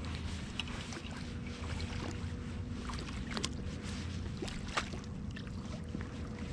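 Scattered light clicks and taps of fishing tackle as a hooked crappie is reeled in and landed, over a steady low rumble and a faint steady hum.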